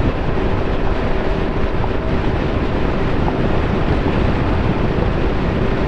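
Loud, steady wind rush on a microphone inside a DX-7 Evo dual-sport helmet on a motorcycle at about 100 km/h, with a faint steady tone underneath.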